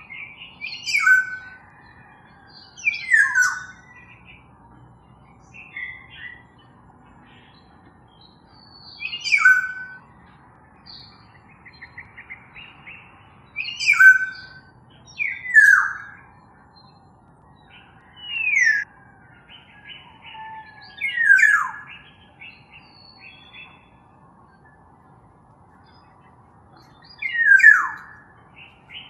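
Black-naped oriole calling at irregular intervals: about nine loud calls, most of them slurring steeply down in pitch, with short fluty notes and a few quick runs of short notes between them.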